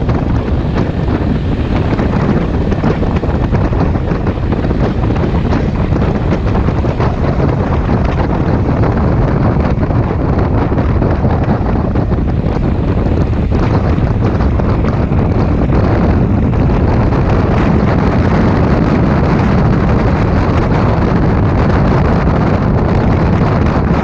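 Steady wind buffeting on a helmet-mounted microphone while riding a maxi scooter at about 30 to 55 km/h, with the scooter's running and road noise underneath.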